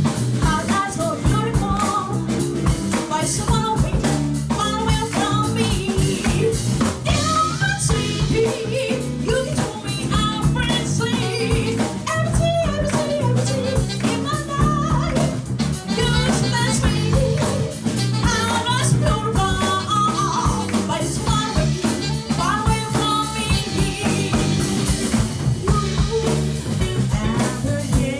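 A live band playing, with a drum kit and a singing voice over a steady bass.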